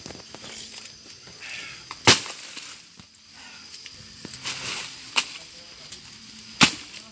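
A few sharp cracks or snaps: loud ones about two seconds and six and a half seconds in, a smaller one around five seconds, over faint background sound.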